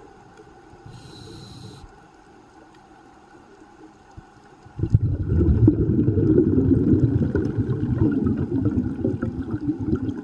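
A scuba diver breathing through a regulator underwater: a short hiss of inhaling about a second in, then from about five seconds in a long, loud, low rumble of exhaled bubbles that fades near the end.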